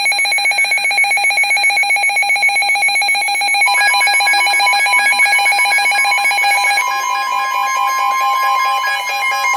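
Emergency Alert System attention signal: a loud, steady electronic alarm tone that marks the start of a severe thunderstorm warning. A second steady tone joins about four seconds in.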